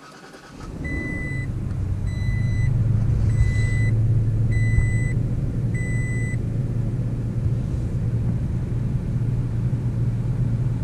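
2021 Toyota Tacoma's V6 engine starting by push button about half a second in, then idling steadily, heard from inside the cab. A high dashboard warning chime sounds five times, about once every 1.2 seconds, during the first six seconds of idle.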